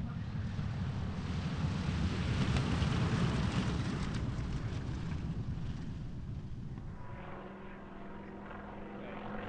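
Radial-engined propeller warbird passing: the engine noise swells to its loudest about three seconds in, then fades. A steadier engine drone with a clear tone is left near the end.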